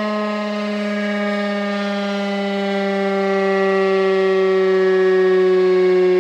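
Federal Signal RSH-10A Thunderbeam outdoor warning siren sounding a continuous loud tone. Its pitch slides slowly lower, and it grows louder from about halfway through as the rotating deflector turns toward the listener.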